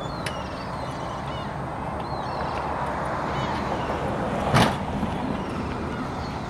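Steady low outdoor rumble with a few faint high chirps, and a single sharp knock a little past the middle.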